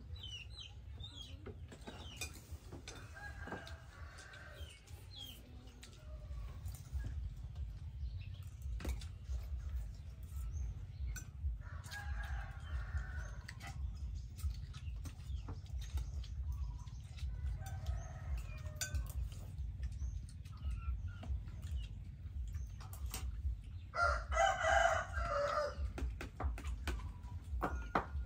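A rooster crowing four times, each crow about one and a half to two seconds long and several seconds apart, the last crow near the end the loudest, over a steady low rumble.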